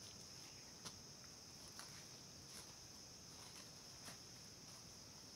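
Faint, steady high-pitched drone of forest insects such as crickets or cicadas, with a few soft ticks scattered through it.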